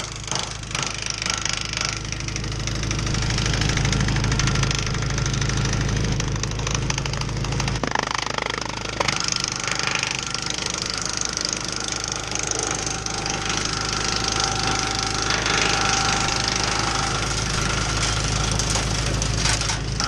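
Tractor engine running steadily and driving a Jinma 8-inch PTO wood chipper; the low hum shifts about eight seconds in.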